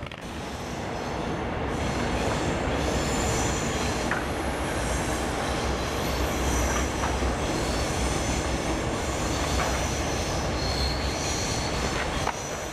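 A tram running on its rails, its steel wheels squealing on the track in several high, wavering tones over a low rumble.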